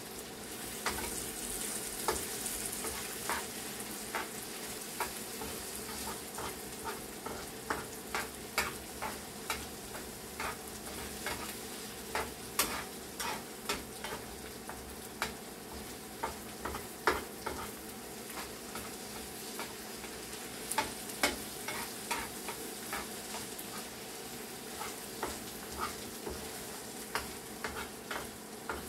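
Shredded chicken and spices sizzling in a frying pan while being stirred, with frequent irregular taps and scrapes of the utensil against the pan.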